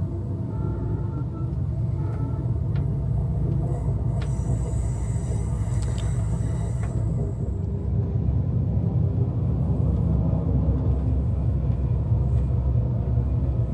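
Steady low rumble of the Amtrak California Zephyr passenger train under way, with a few light clicks and a brief thin hiss about halfway through.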